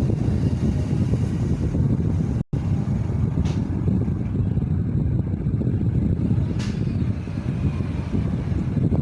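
Airflow from a running Jiamei ceiling fan buffeting the microphone: a steady low rumble, with a momentary dropout about two and a half seconds in.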